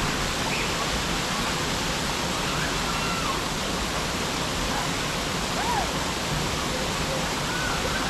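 Waterfall cascading over rock into a pool, a steady rush of water.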